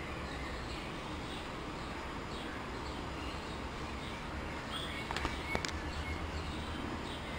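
Steady outdoor background hiss with faint, scattered bird chirps, and a few short clicks and taps in the last two seconds.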